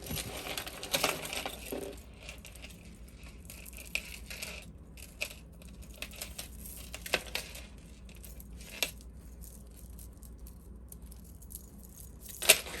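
Loose metal jewelry pieces (chains, earrings, bangles) clinking and jingling as they are handled and untangled by hand. A rustling jingle at first, then scattered sharp clinks, the loudest near the end.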